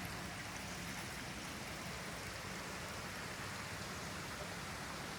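Steady rushing of a stream's running water.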